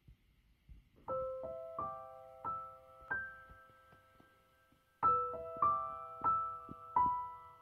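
Background piano music: a slow, gentle line of single held notes and chords that starts about a second in, pauses briefly in the middle, and then resumes.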